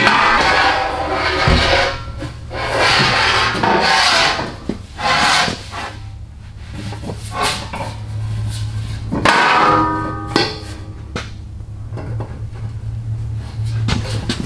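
Stainless air cleaner being worked into its mount on a Peterbilt 379, scraping and rubbing in repeated pushes of a second or two, with the mating surfaces wetted with soapy water. There is a short squeak about ten seconds in.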